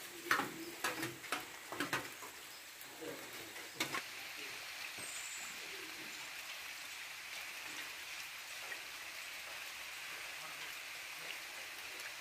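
Outdoor forest ambience: scattered clicks and rustles for the first four seconds or so, then a steady high-pitched hiss.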